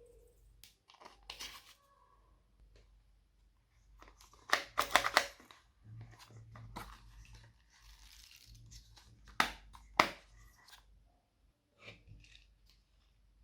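Slime being squished and stretched by hand, giving sticky crackles and pops; a burst of clicky crackling comes about five seconds in, and two sharp snaps close together near ten seconds.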